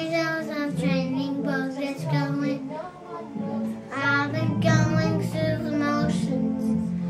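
A young child singing a song in a deliberately gruff voice over an instrumental backing track.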